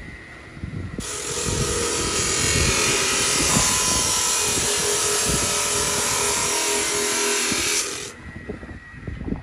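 Power cutting tool with a spinning disc, such as a cut-off saw, running in a hissing cut for about seven seconds. It starts about a second in and cuts off sharply near the end.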